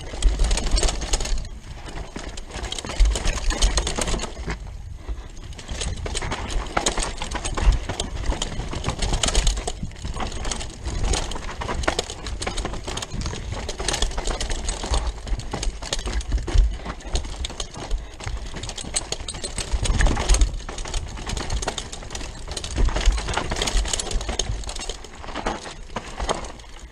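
Rockrider 540S mountain bike descending a dirt forest trail at speed: a continuous rattle and clatter of the bike over roots and bumps, with tyres on loose dirt and gusts of wind buffeting the microphone in low rumbles several times.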